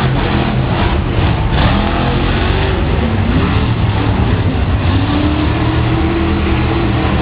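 Monster truck engines running loud and revving, their pitch rising and falling as the trucks drive through deep mud.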